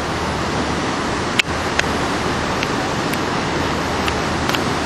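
Steady rushing noise of wind and water aboard a moving boat, with a few small sharp clicks, the loudest about a second and a half in.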